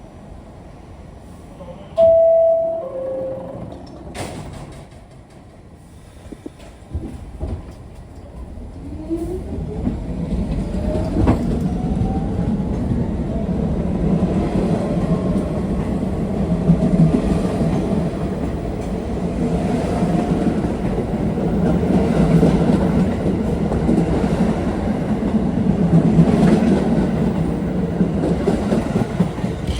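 R46 subway train: a two-note descending chime about two seconds in, a sharp thud shortly after, then the train pulling away. Its traction motors whine upward in pitch and its wheels clack over the rail joints as it gains speed and runs on loudly.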